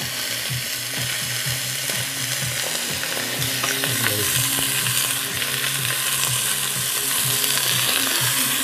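Chunks of beef sizzling steadily as they brown in butter and olive oil in a hot heavy pot, with a wooden spoon stirring them near the end.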